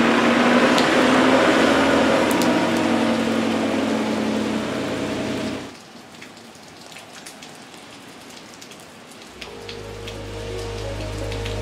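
Steady rain pouring onto a flooded street, mixed with a vehicle engine's low running, which cuts off suddenly about halfway through. After that come softer rain with a few drips, and a low steady hum that starts near the end.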